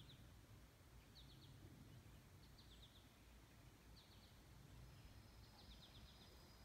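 Faint outdoor quiet with groups of three to five quick high chirps repeating about every one and a half seconds, over a low, even rumble.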